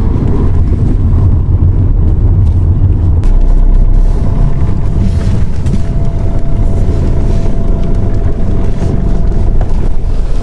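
Loud low motor rumble, with a steady whine joining about three seconds in and stopping just before the end.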